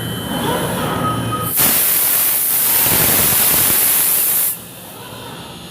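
Comec MD TOP CNC woodworking machine (milling, drilling and mortising) running; about a second and a half in a loud hiss starts abruptly, holds steady for about three seconds and cuts off suddenly, leaving quieter machine noise.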